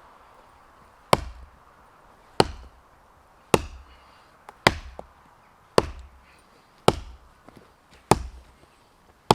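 Hultafors Hunters Axe, with its 850 g Swedish steel head, chopping into a tree trunk: eight steady, evenly spaced strikes, about one a second, each a sharp knock. These are the first cuts that mark the felling line on the trunk.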